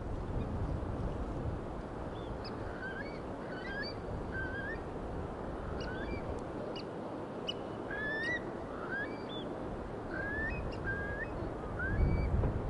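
Seaside birds calling in many short, rising notes, overlapping one another, over a steady rush of surf and wind. A louder low rumble comes near the end.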